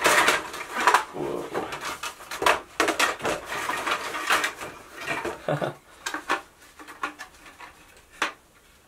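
Hornby plastic model station parts clattering and rattling against each other and their card box as they are handled and lifted out, a dense run of small clicks and knocks. It thins out to a few scattered clicks over the second half, with one sharp knock near the end.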